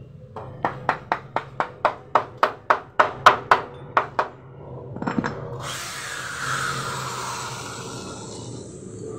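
A quick run of about fifteen hammer blows, three to four a second, knocking a palochina pine board into place in a metal shelf frame, followed by a couple of duller knocks. Then a handheld electric drill starts and runs steadily, its whine easing slightly lower.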